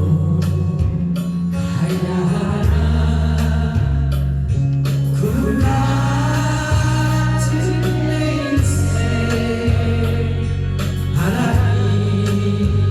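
A Korean trot song on a backing track with a steady bass line, sung by a group of voices.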